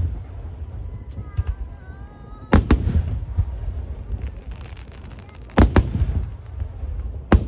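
Aerial firework shells bursting with loud booms: one a little over two seconds in, two close together past the halfway point and another near the end. Fine crackling runs between the bursts, over a continuous low rumble.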